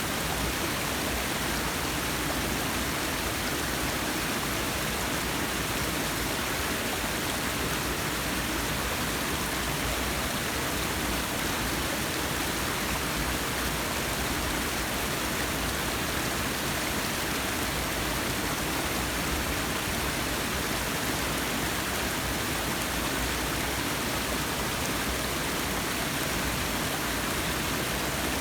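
Forest waterfall rushing, a steady, unbroken wash of falling water.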